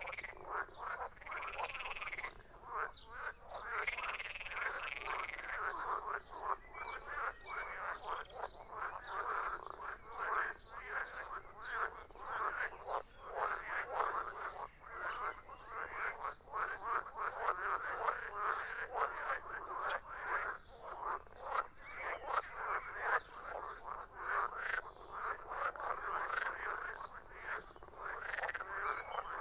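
A chorus of frogs croaking continuously, many rapid calls overlapping with no break.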